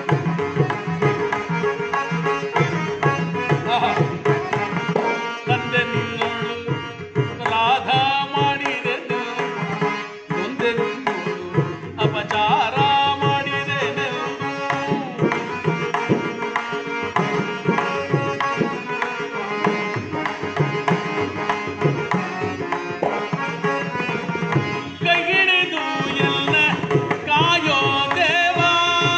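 Tabla and harmonium playing a Kannada stage song (ranga geethe), the harmonium holding steady tones under dense tabla strokes. A male voice comes in several times with long, wavering sung phrases.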